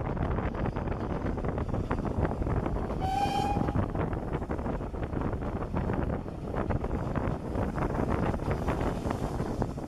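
A steam-hauled train running, heard from the carriage window: a steady rumble of wheels on rail with wind on the microphone. About three seconds in, one short toot of the locomotive's steam whistle, from BR Standard Class 4 2-6-4T no. 80136.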